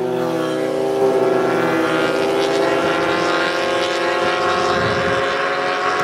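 A motor vehicle engine running with a steady drone. Its pitch dips slightly at the start and then holds level, while a rushing hiss builds from about two seconds in.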